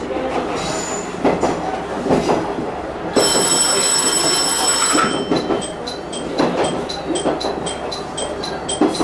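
Diesel railcar running over points and rail joints, its wheels clacking, with a high wheel squeal for about two seconds through a curved turnout in the middle. After the squeal a high bell-like ringing repeats about three times a second.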